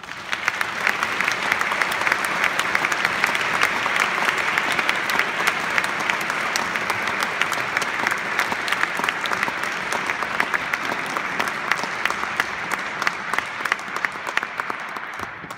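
Audience applauding. The clapping breaks out suddenly and holds steady, then thins a little near the end.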